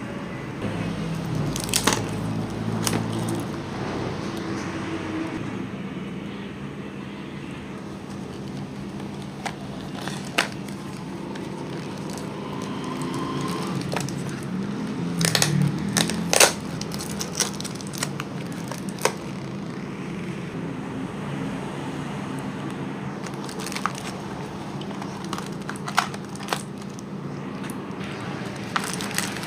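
Gift-wrapping paper, tape and plastic packaging handled and torn open by hand: irregular crinkling and crackling with scattered sharp snaps, loudest in a cluster about halfway through, over a steady low hum.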